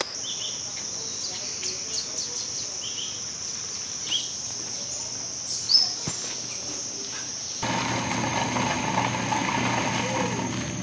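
Steady high-pitched insect drone with a few short bird chirps. About two-thirds of the way through, the background suddenly becomes fuller and louder while the insect drone carries on.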